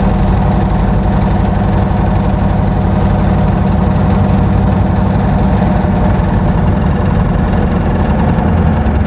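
Van's RV-8's single propeller engine running steadily at takeoff power during the takeoff roll, heard from inside the cockpit.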